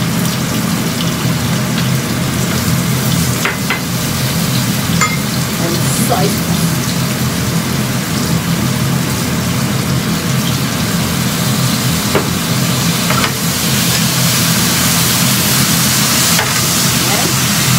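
Fried tofu sizzling in a frying pan with sautéed garlic, ginger and chili paste as it is stir-fried with a wooden spatula, the spatula knocking against the pan a few times. A steady low hum runs underneath.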